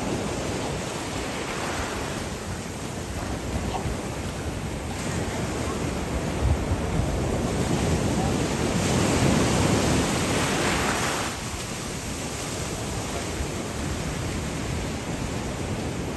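Ocean surf washing up the beach, with wind on the microphone. The wash grows louder a little past the middle, then drops away.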